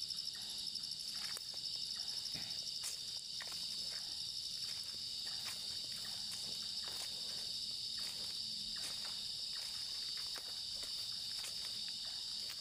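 Steady chorus of crickets chirping at night, with occasional faint clicks.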